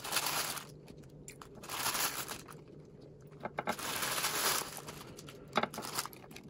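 Plastic packet of ladyfinger biscuits crinkling in three bursts as biscuits are pulled out, with a few light taps in between.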